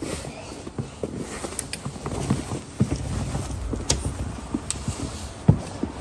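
Snow boots crunching in fresh snow as a toddler steps and stomps through it: an uneven run of short crunches with a few sharper clicks.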